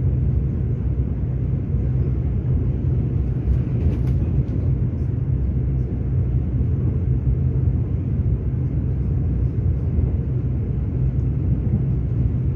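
Steady low rumble of a moving train heard from inside the passenger car.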